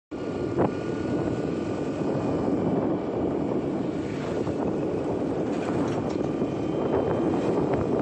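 Motorbike riding along an open road: steady engine, tyre and wind noise.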